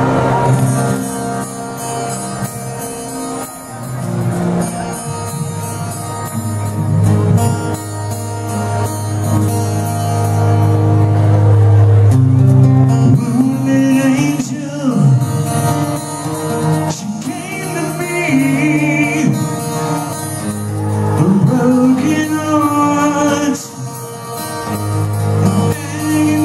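Live hard-rock band playing on stage: electric guitars over a steady low bass note, with notes bending and wavering in pitch from about halfway through.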